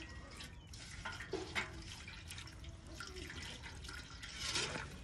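Water from a garden hose running and splashing in a metal bucket as it is rinsed and scrubbed out by hand, with a louder splash near the end.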